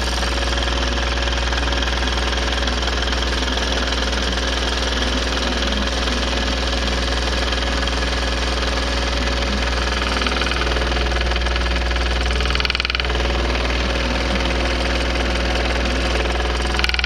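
Scroll saw running steadily, its reciprocating blade cutting through a thick wooden board.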